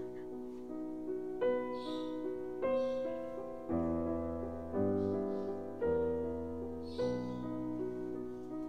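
Slow, gentle background piano music: a new note or chord about every second, each one dying away before the next.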